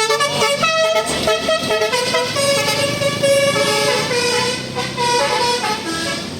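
Bus 'telolet basuri' musical air horn playing a fast melody: several horn tones sounding together and stepping from note to note, over the bus's low engine rumble.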